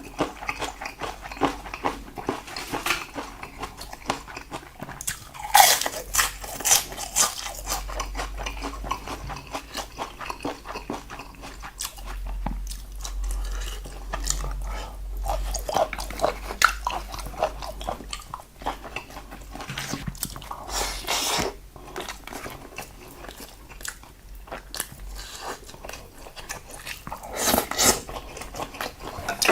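Close-miked eating of salted seafood side dishes: continuous chewing with crunchy bites, a few of them much louder than the rest.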